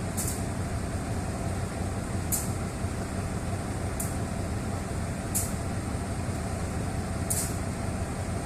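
Diesel-electric locomotive (GEA 4554) engine running steadily at idle, with short sharp hisses of air about every one and a half to two seconds.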